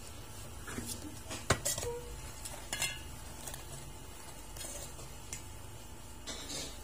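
Kitchen knife and vegetables being handled against a cutting board and metal bowl: a few scattered sharp clicks and clinks, the loudest about one and a half seconds in, between softer rustles.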